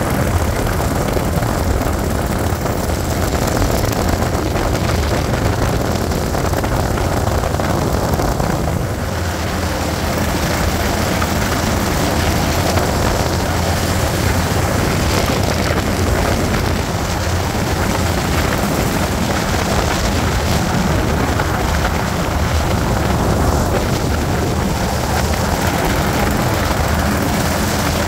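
1987 Chevrolet K10 pickup driving at a steady speed, heard from inside the cab: a low engine drone mixed with road and wind noise, dipping slightly about nine seconds in. The engine is running on freshly replaced head gaskets.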